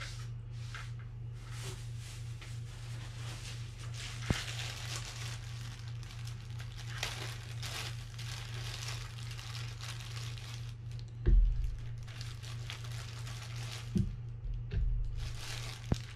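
Rustling and crinkling of someone rummaging for a tool, with a sharp click about four seconds in and a few dull knocks in the last five seconds, over a steady low hum.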